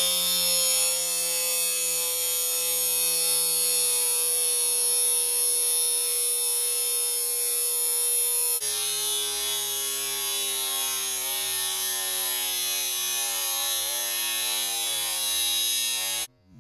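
A high-speed electric motor, such as a power tool's, running steadily with a high buzzing whine. About eight and a half seconds in, it steps slightly lower in pitch and level. It stops abruptly near the end.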